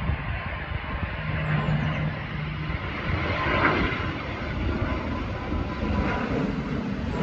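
Engines of an airliner on landing approach, a steady noise growing slowly louder as it nears overhead, with wind gusting on the microphone.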